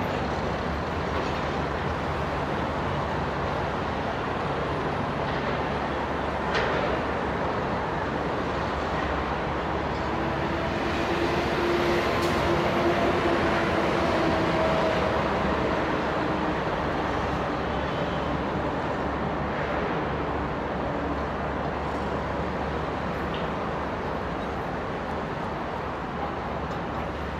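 Heavy construction machinery, such as pipelayers and a trencher, with engines running in a steady, unbroken mechanical din; a faint steady tone sits over it through the middle stretch.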